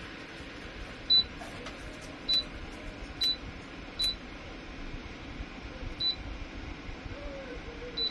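Six short, high electronic beeps at one pitch, irregularly spaced a second or two apart, over a steady fan hiss.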